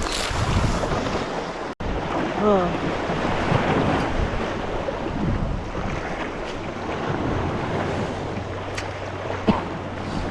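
Surf washing against a rocky shore, with wind buffeting the microphone. A sharp tap sounds about nine and a half seconds in.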